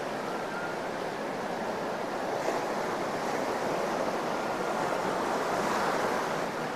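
Ocean surf washing onto a sandy beach, a steady rushing wash that swells slightly a few seconds in and again near the end.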